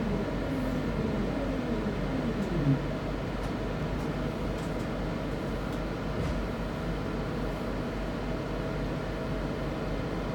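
Hunslet-built Class 323 electric train's traction motors whining down in pitch as it slows, the whine fading out about two and a half seconds in. A steady hum and rumble follows.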